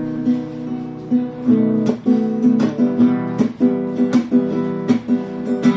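Acoustic guitar strummed in chords, with sharp strokes about twice a second in a steady rhythm.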